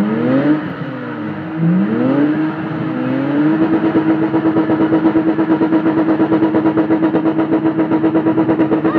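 Car engines revving hard during donut drifts with the rear wheels spinning: three quick rising revs, then from about a third of the way in the revs held steady and high with a rapid, even pulsing.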